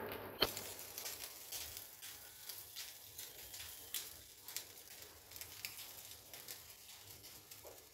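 Steel spoon stirring mashed-potato samosa filling in a steel bowl: soft scraping and squishing with scattered light clinks of spoon on bowl, the sharpest clink about half a second in.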